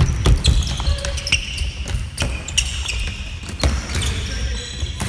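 Indoor neohockey play on a wooden gym floor: the plastic ball and plastic-bladed sticks knock and clack, mixed with running footsteps and short, high sneaker squeaks on the floor.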